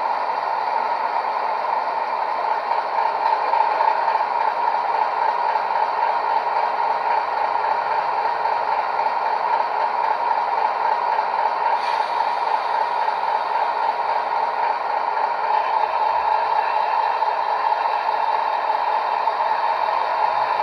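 Legomanbiffo DCC sound on a Hornby Class 60 model locomotive, playing a Class 60 diesel engine idling through a small 25x25x7 mm megabass speaker: a steady, even drone.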